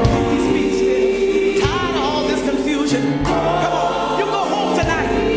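Gospel song: voices singing in a choir-like blend with wavering, held lines over a band with bass and cymbals.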